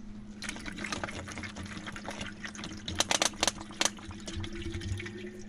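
Water glugging out of an upturned plastic water bottle into the filler neck of an aluminium radiator, topping up the cooling system. There is an irregular run of gurgles with a quick cluster about three seconds in.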